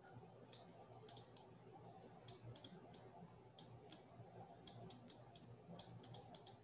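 Faint, irregular light clicking at a computer: about twenty sharp clicks, some in quick clusters, over a low room hum.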